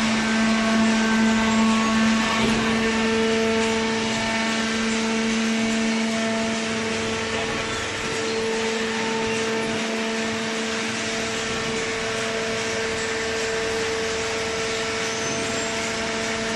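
Horizontal carton baler machine running: a steady mechanical hum with a strong noisy wash, its hum tone shifting slightly a few seconds in.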